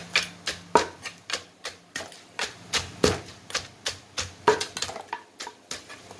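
Wooden pestle pounding shredded green mango in a wooden mortar, with a metal spoon turning the salad between strokes. Sharp knocks come irregularly, about three a second: the light pounding that mixes and bruises a Thai green mango salad after seasoning.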